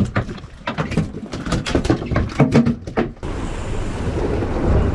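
A quick run of knocks and clatters from gear and lids being handled on a fishing boat's deck. About three seconds in, this gives way to a steady rush of wind and water as the boat runs through the sea.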